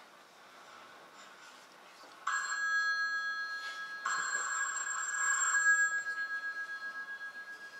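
Telephone ringtone ringing: quiet at first, then two rings starting about two seconds in, the second fading slowly away near the end.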